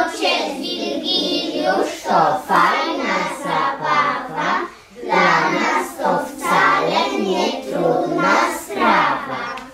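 A group of young children singing a song together in unison, in a steady rhythm with brief pauses between lines.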